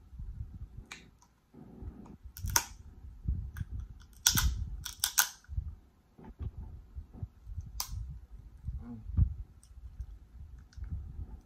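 Close-miked eating of boiled lobster: low, soft chewing of claw meat, broken by several sharp clicks and cracks as lobster shell is picked apart by hand.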